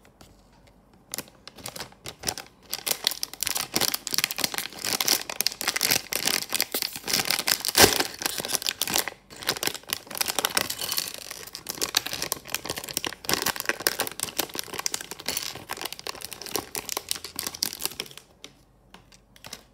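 Plastic LEGO minifigure blind bag crinkling and crackling as it is handled and torn open, a dense, rapid crackle that stops near the end, leaving a few faint clicks.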